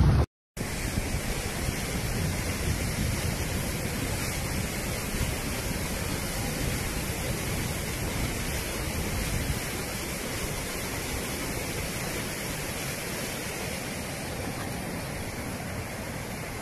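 Muddy floodwater rushing in a torrent across a road, a steady churning rush that starts just after a brief silent gap and eases a little toward the end.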